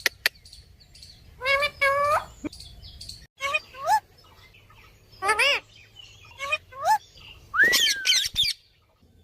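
Ring-necked parakeet making a series of short, pitched chirping calls that rise and fall, ending with a longer swooping call near the end.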